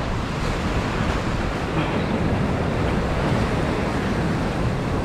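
Sea surf breaking and washing against rocks in a steady rushing noise, with wind on the microphone.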